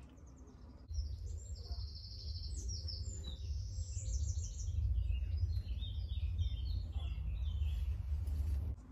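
Several birds singing, with quick chirps and trills over a steady low rumble. The sound starts abruptly about a second in and cuts off near the end.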